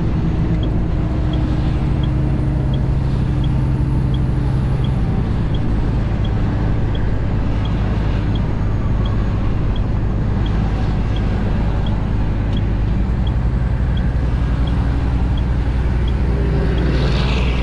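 Western Star 4900SF semi tractor's diesel engine droning steadily at highway cruise, heard from inside the cab with road noise. A faint, regular ticking runs under it, about three ticks every two seconds.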